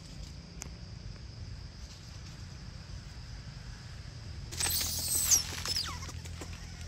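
Steady high insect hum of the forest. About four and a half seconds in comes a burst of about a second of shrill squeals falling in pitch, from a baby macaque.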